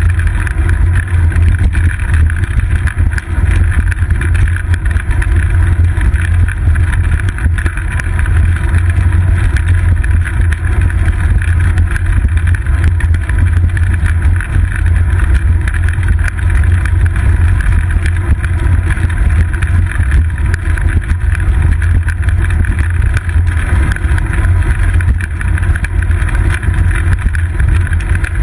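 Steady low rumble of ride vibration and wind noise, picked up through a GoPro Hero 2 mounted on a moving bicycle's seat post.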